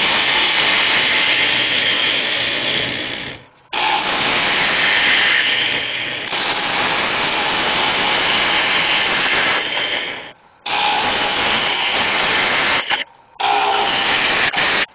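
A turning tool cutting into the inside of a wooden bowl of sycamore glued up with iroko and oak, spinning on a lathe, as the bowl is hollowed out: a loud, steady hiss of shavings being peeled off. It breaks off in a few short gaps where the tool leaves the wood between passes.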